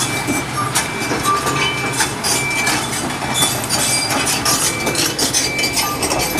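Kobelco crawler excavator travelling on its steel tracks: a continuous irregular clanking and clinking of track links over a steady diesel engine hum, with scattered short high squeaks.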